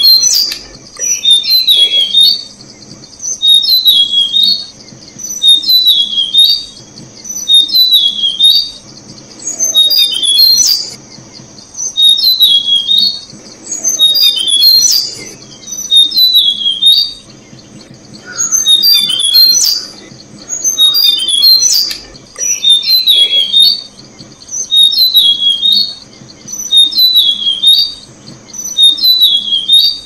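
Tickell's blue flycatcher calling: a short, high phrase of quick downward-slurred notes, repeated about every two seconds, over a steady high insect drone.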